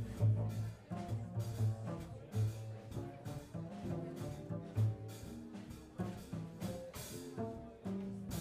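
Live small-group jazz: an archtop guitar, a plucked upright double bass and a drum kit playing together, the bass notes the strongest part of the sound, with a louder cymbal wash near the end.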